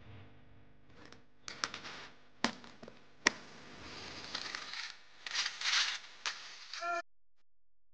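Aggressive inline skates on concrete: several sharp clacks from landings and a longer scraping grind along a ledge. The sound cuts off abruptly about a second before the end.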